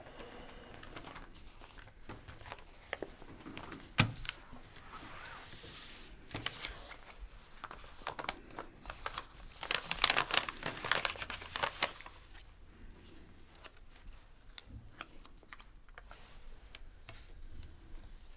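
Paper rustling and crinkling as a small folded paper packet is opened and handled, densest about ten to twelve seconds in. A single knock comes about four seconds in.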